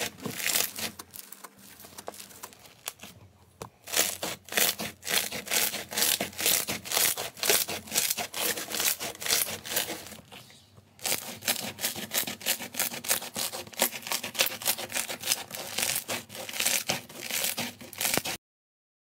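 Thick, fluffy slime being squeezed and pressed by hand, giving dense crisp crackling and popping, many small clicks in quick succession. It eases off twice, then cuts off suddenly near the end.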